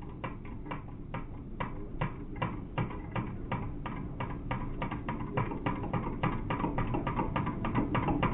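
A spoon stirring creamer into coffee in a glass, clinking against the side about three times a second and getting louder toward the end.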